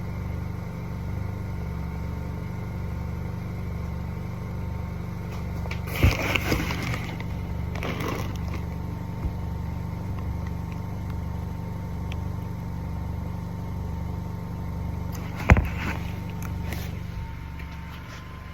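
Honda Accord's 1.5-litre turbo four-cylinder idling as a steady low hum with a slow, even pulse. Two sharp knocks come about 6 and 15 seconds in.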